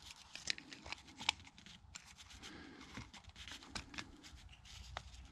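Faint scattered clicks and light scrapes of a Massey Ferguson 35x fuel lift pump being handled: the new rubber diaphragm and its pull rod are fitted onto the metal pump body and hooked onto the rocker arm linkage.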